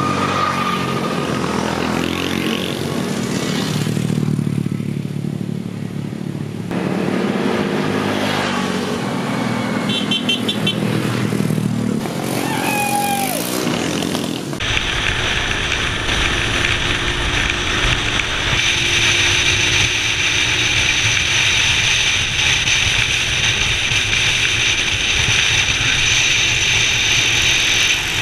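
Small motorbikes running along a road, engine sound mixed with wind and road noise. The sound changes abruptly twice, about a quarter of the way and halfway through, then settles into a steady, hissy ride noise.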